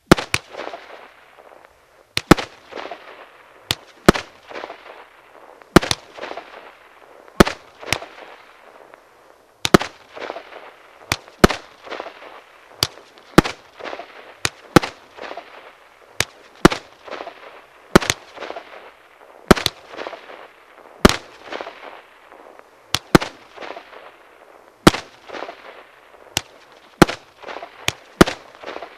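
Star Party 25-shot, 30 mm consumer fireworks cake firing: sharp shots roughly once a second, each followed by a fading hiss as the shells burst.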